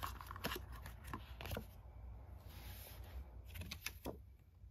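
Plastic playing cards and their card box being handled: a few light clicks and taps, with a brief sliding rub about two and a half seconds in, over a faint low hum.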